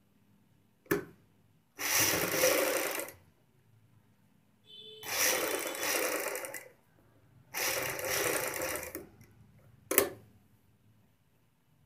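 Sewing machine running in three short bursts of stitching, each lasting one to two seconds, with a sharp click before the first burst and another after the last.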